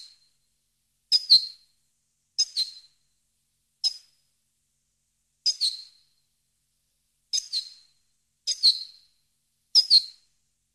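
European goldfinch (Carduelis carduelis) giving seven short, high-pitched call phrases, each under half a second, spaced a second or two apart with silence between.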